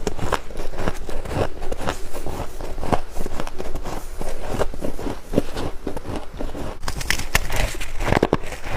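Close-up chewing and crunching of soft, snowy freezer frost: a quick, irregular run of crisp crunches, several a second, with a burst of sharper bites near the end.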